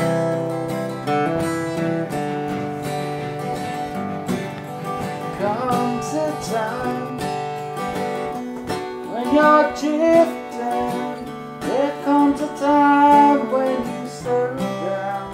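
Acoustic guitar strumming chords, with a voice singing along from about five seconds in.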